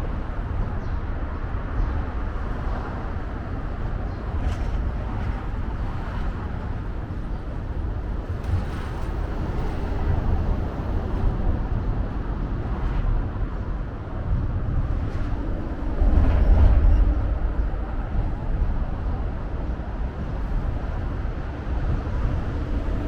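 Outdoor city ambience: a steady, deep rumble of passing road traffic, swelling about sixteen seconds in.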